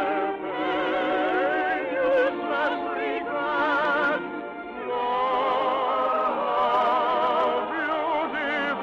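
Operatic-style singing from a stage musical, held notes with a wide vibrato over musical accompaniment. There is a brief dip about four and a half seconds in, before a new phrase of long sustained notes.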